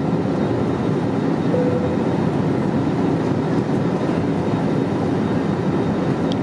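Steady in-flight cabin noise of an Airbus A321neoLR at cruise speed: an even rush of airflow and engine drone, heaviest in the low end, with a faint steady hum.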